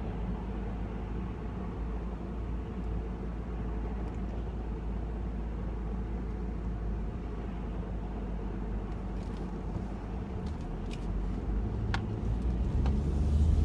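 Car interior while driving slowly: a steady low engine and road rumble that grows louder over the last few seconds, with a few light clicks near the end.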